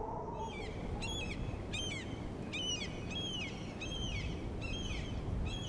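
A bird calling over and over, about eight short calls each dropping in pitch, over a steady low rumble.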